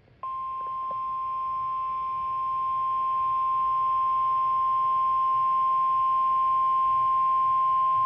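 Emergency alert attention tone, the single-pitch warning alarm of NOAA Weather Radio. It is a steady, unbroken beep starting a moment in and growing slightly louder, over faint radio hiss. It signals that a severe thunderstorm warning is about to be read.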